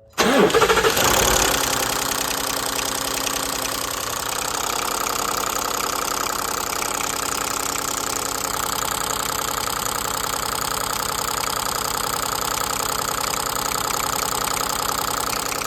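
Ford F-150 engine running steadily at idle, a little louder for about the first second.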